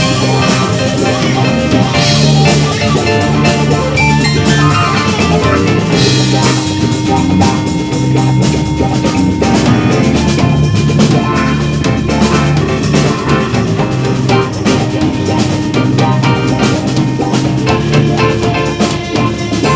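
Live rock band playing loudly: drum kit with steady beats and cymbal hits, electric guitars, bass guitar and keyboards.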